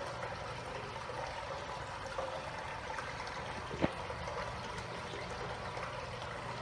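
Water running steadily in an overflowing wall-mounted urinal, a continuous trickle and splash. One sharp click sounds nearly four seconds in.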